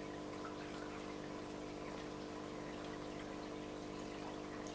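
Faint steady hum of a small water pump with a light trickle of water, typical of an aquarium filter running, with a few faint ticks over it.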